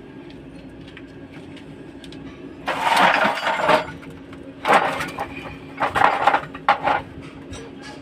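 Metal parts and tools clattering and scraping in four rough bursts, the first and longest about three seconds in, over a steady low hum.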